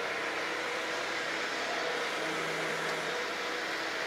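Steady background noise of a large indoor hall: an even hiss with a faint low hum.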